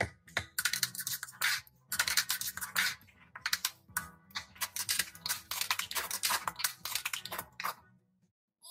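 Plastic toy excavator cracking and crunching under a car tyre: a dense, irregular run of snaps and cracks over a low steady hum for several seconds, stopping abruptly near the end.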